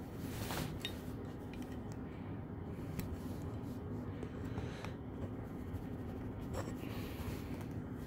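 Faint clicks and scrapes of a small metal model airplane being handled and pushed at its display stand, which it will not fit into.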